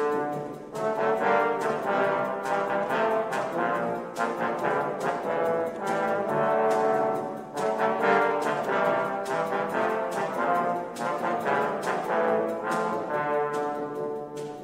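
Brass band of cornets, horns, euphoniums, trombones and tubas playing together in full chords, the loudness swelling and dipping with the phrases.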